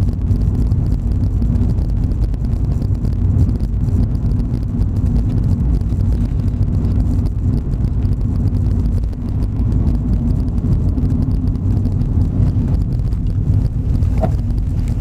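Motorhome driving along: steady low engine and road rumble.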